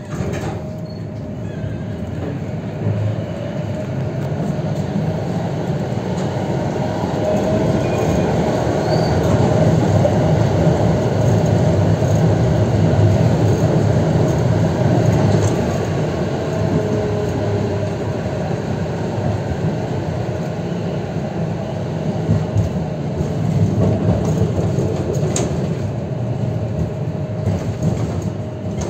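Konstal 105Na tram set running along the track: a low rumble of wheels on rails with a thin steady whine, growing louder toward the middle and then easing off. A couple of sharp clicks come from the rails.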